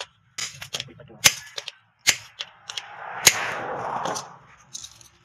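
Hammer blows driving a hot-cut chisel through red-hot leaf-spring steel on a steel post anvil: a run of sharp strikes at uneven spacing, with a rush of noise about three to four seconds in.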